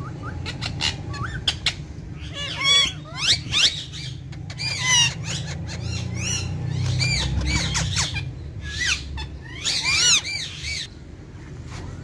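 Indian ringneck parakeets calling in bursts of short, arched squawks and chatter, loudest around the middle and again near the end, over a steady low hum.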